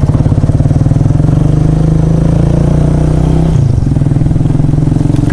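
Single-cylinder motorcycle engine running steadily under way, its pitch dropping a little about three and a half seconds in as the throttle eases or it shifts gear.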